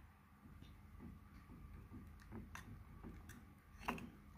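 Faint, irregular clicks of a metal spoon knocking against a terracotta clay pot while stirring wet clay paste, the clearest click near the end.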